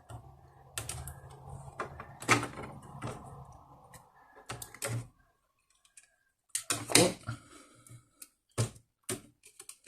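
Irregular sharp plastic clicks and taps from hands working inside an opened laptop, unplugging the speaker cable and handling its small plastic parts.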